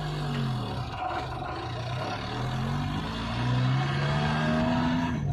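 Vehicle engine pulling away and accelerating, its pitch climbing and dropping back about three times as it works up through the gears.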